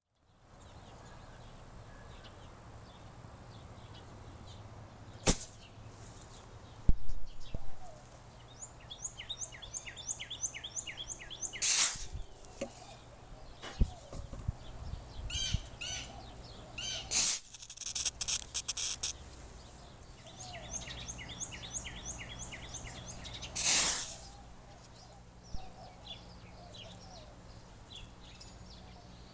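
Several brief hissing whooshes of loose black powder and black powder substitutes flaring up in an open pan, between stretches of songbirds chirping in quick repeated phrases.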